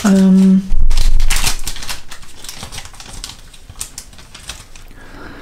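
Crinkling of a torn-open plastic Katjes Wunderland sweets bag being picked up and handled, starting about a second in, loudest at first and dying down over the next few seconds.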